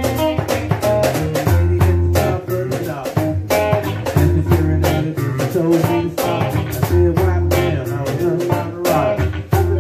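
A live band jamming a blues number: an electric guitar over a drum kit keeping a steady beat.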